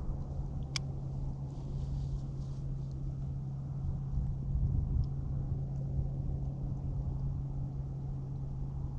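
Wind rumbling on the microphone over a steady low hum, with one sharp click about a second in.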